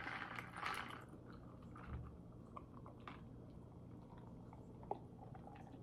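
Quiet mouth sounds of chewing, then sipping and swallowing from a glass of iced soda, with a few faint clicks.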